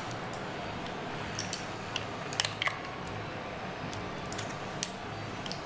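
A few light clicks of cooked mussel shells as the mussels are opened and the meat is picked out by hand, over a steady low hum and hiss of kitchen background noise.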